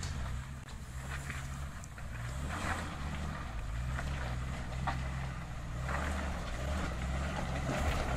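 Suzuki Vitara 4x4 engine running at low revs as it crawls over a rocky track, growing louder as it draws near, with a few sharp knocks of stones under the tyres.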